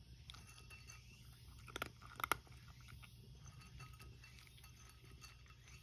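A cat crunching dry kibble from a ceramic bowl: faint chewing clicks throughout, with two louder clicks about two seconds in.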